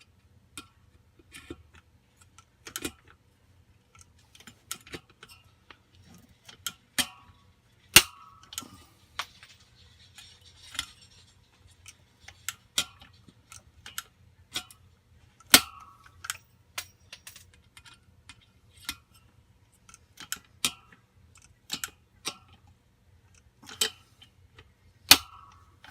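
Hand pop-rivet gun setting rivets into a blower wheel: a string of sharp clicks as the handle is worked, with three much louder snaps spaced several seconds apart as rivets set.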